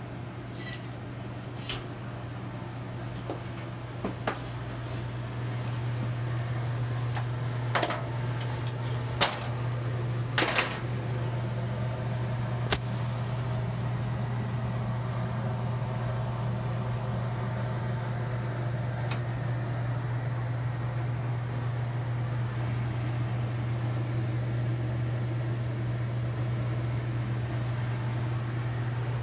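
Several sharp metal clanks and knocks in the first half as the arm and crucible of a centrifugal casting machine are handled, over a steady low machine hum. The hum grows slightly louder about six seconds in.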